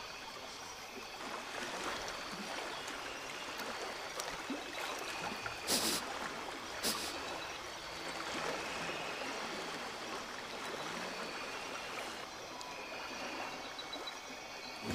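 Flowing river water, a steady trickling rush. Two short, sharp sounds stand out about six and seven seconds in.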